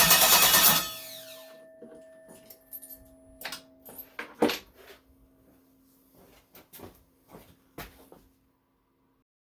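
Rebuilt Chevrolet Vortec V8 running, then shut off within the first second and spinning down. Scattered light clicks and knocks follow, the loudest about halfway through.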